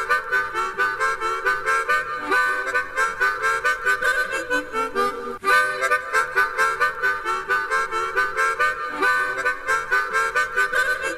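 Instrumental theme-tune intro from an old children's TV series: a reedy lead plays quick repeated notes, with a short break about five seconds in.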